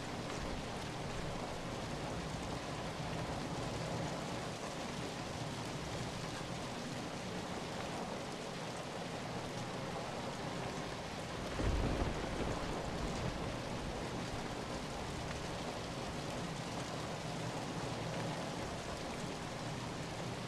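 Steady rain falling, an even hiss of drops on surfaces. About halfway through comes a brief low rumble of thunder.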